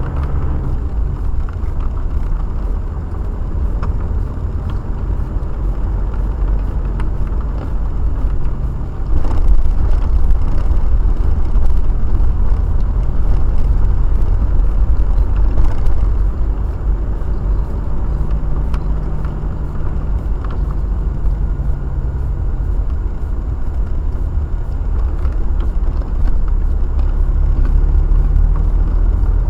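Car driving, heard from inside the cabin: a heavy steady rumble of road and engine noise with an engine hum that comes and goes, louder for a stretch in the middle.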